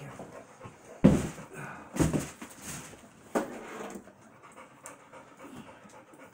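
Heavy breathing and grunts of people straining to lift a heavy 70-inch flat-screen TV, with three loud exhalations about one, two and three and a half seconds in.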